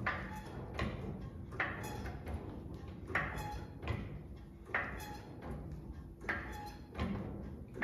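A 1952 Ford F100's cantilever rear suspension being bounced through its travel. It makes a rhythmic creak and clunk about every 0.8 seconds, each stroke starting sharply and then fading.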